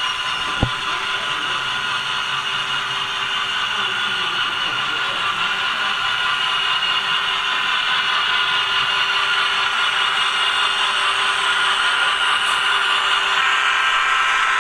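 HO-scale model Santa Fe Dash 9 diesel locomotive and its freight cars running on the layout track, a steady mechanical whir and clatter that grows gradually louder as the train comes closer. One sharp click about half a second in.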